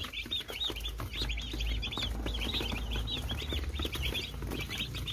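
A box of young broiler chicks peeping, many short high chirps overlapping in a continuous chatter, with a low rumble underneath.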